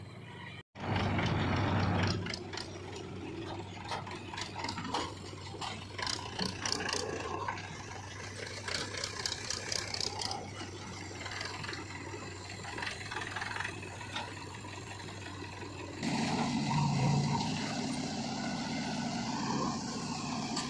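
Diesel engine of a backhoe loader running steadily while it digs and loads mud, with scattered metallic clatter and scraping. The sound drops out briefly under a second in and gets louder about 16 seconds in.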